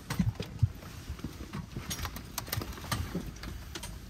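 Irregular knocks and low thuds, a few a second, mixed with light clicks.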